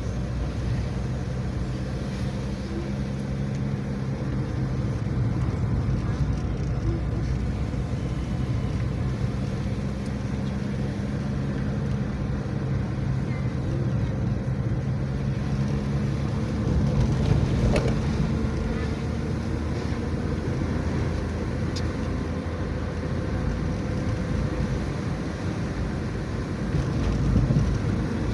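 Car engine and road noise heard from inside the cabin while driving a winding road. The engine note holds steady and shifts in pitch a few times, and there is a brief knock about two-thirds of the way through.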